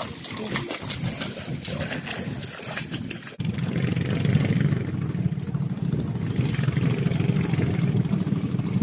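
Sea water splashing and spraying around dangling legs for about three seconds. Then, at a sudden cut, a steady low engine-like drone takes over.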